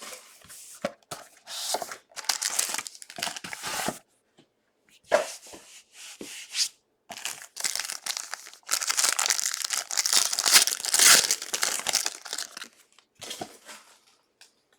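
Trading card packaging being torn open and crinkled by hand, in uneven spurts, the longest and loudest near the middle to end.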